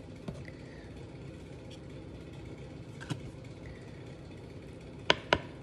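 Metal fork clicking against a bowl while scooping ice cream: a few faint taps, then two sharp clicks a quarter second apart near the end, over a steady low background hum.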